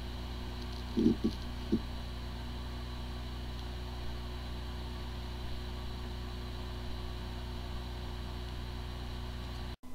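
Hard drive spinning with a steady whirring hum and a few short low noises about a second in. It sounds like a good drive, but its firmware is corrupted, so the computer cannot detect it. The sound cuts off just before the end.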